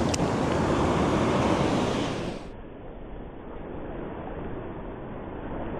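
Ocean surf washing up the beach as a steady rush. About two and a half seconds in it turns abruptly quieter and duller.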